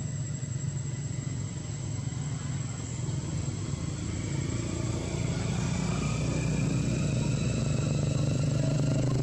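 A motor vehicle engine runs steadily and grows louder from about halfway through.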